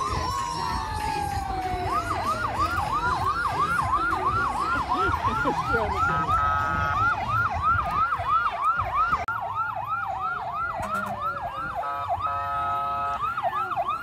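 Fire truck sirens sounding together: a slow wail sliding down in pitch overlaps a fast yelp of about three cycles a second. Two short horn blasts break in, about six and twelve seconds in.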